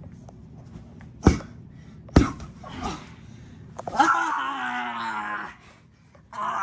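Two sharp body impacts about a second apart as wrestlers slam, then a drawn-out pained cry lasting about a second and a half.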